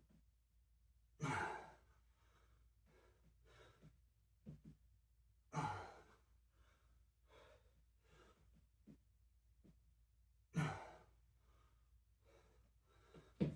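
A man breathing hard from exertion during a set of kickstand single-leg deadlifts: three loud, forceful exhales about four to five seconds apart, with quieter breaths between.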